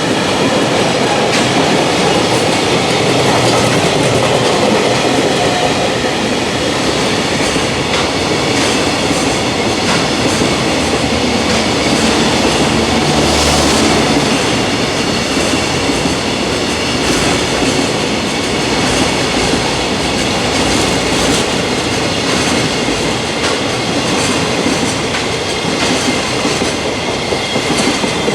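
JR Freight container train rolling past at speed, a steady run of wagon noise with the wheels clattering over rail joints.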